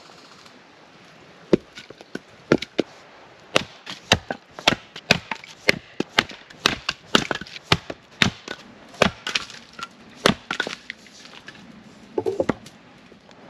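Axe splitting firewood rounds on a stump chopping block: a run of sharp chops and splitting cracks, about two a second, often in close pairs, stopping about eleven seconds in. A short, softer clatter follows near the end.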